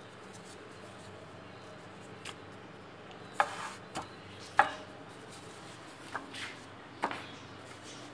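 Hands and dough knocking against metal baking trays: about half a dozen irregular sharp taps and knocks, the loudest two in the middle, one with a brief metallic ring, over a faint steady hum.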